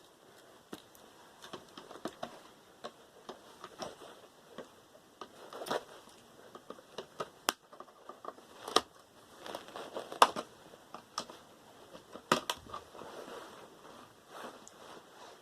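Scattered clicks, taps and clatter of small metal and plastic computer parts being handled and pried apart, with several sharper knocks in the middle of the stretch as pieces hit a hard surface.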